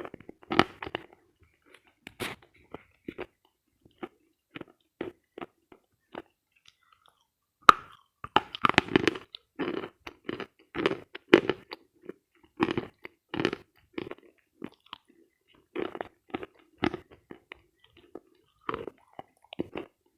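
A person biting and chewing dense dry eating chalk, picked up close by a headphone microphone. Scattered crunches, then a sharp crack about eight seconds in, followed by several seconds of rapid crunching chews that thin out again toward the end.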